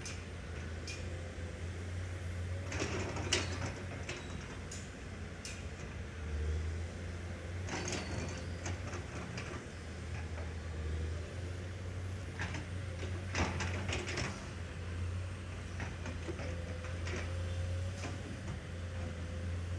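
Construction-site ambience: a steady low rumble with scattered knocks and clanks, the strongest cluster about two-thirds of the way in.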